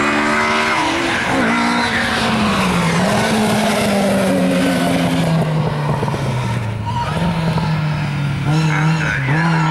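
Mk1 Ford Escort rally car engine, its note dropping over the first few seconds as the car slows, then running at a steadier, lower pitch. Its tyres squeal briefly near the end.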